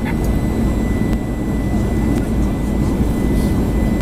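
Steady rumble of an Airbus A320's jet engines and airflow, heard from inside the passenger cabin.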